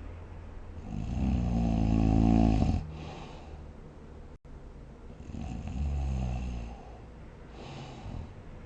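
A sleeping person snoring: two buzzing snores, the first louder and longer, each followed by a short airy breath.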